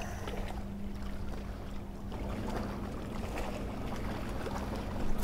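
Quiet on-the-water ambience from a fishing boat: a steady low hum under a light wash of wind and water noise.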